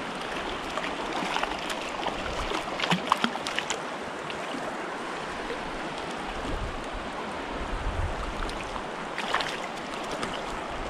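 Shallow mountain stream running over cobbles in a steady rush. Short splashes and crackles come about three seconds in and again about nine seconds in as a hooked trout is brought to the net.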